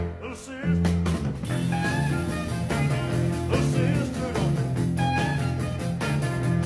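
Rock and roll band playing with electric guitars and a drum kit on a steady beat, with some singing. The sound drops briefly just after the start, then the full band comes back in.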